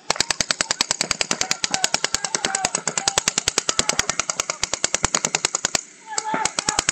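Paintball markers firing rapid strings of shots, about ten a second, that stop briefly about six seconds in before firing starts again.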